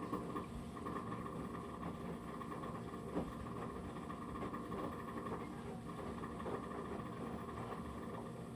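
Panasonic NA-VX7700L drum washing machine running, its drum turning, with a steady hum and tones and a rapid clicking rattle, the high 'kakakaka' noise heard when the drum turns during wash and rinse. The owner attributes the noise to a stretched, worn drive V-belt.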